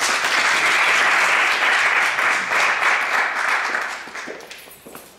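Audience applauding, dying away in the last second or so.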